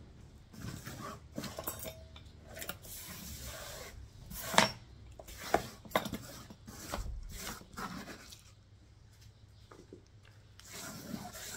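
A hand sweeping loose potting soil across a plastic tablecloth: a run of uneven rubbing, scraping strokes, with three sharp taps around the middle.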